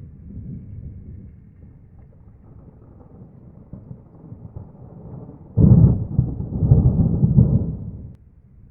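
Thunder from a lightning strike: a faint low rumble, then about five and a half seconds in a sudden loud clap that rolls in several surges for about two and a half seconds before cutting off suddenly.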